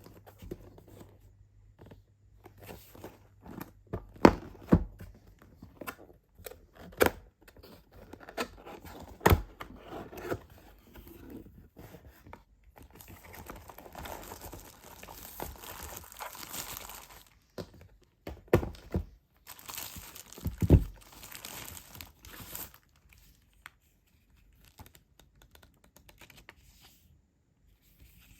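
Unboxing sounds: plastic and paper packaging crinkling and tearing in stretches, with scattered knocks and thumps as the box and its contents are handled.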